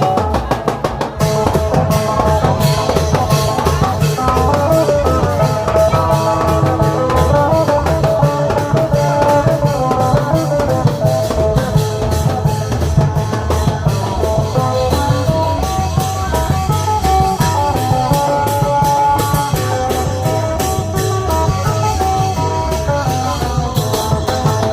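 Isan klong yao long-drum band playing lively procession music: a steady drum beat under a plucked string melody.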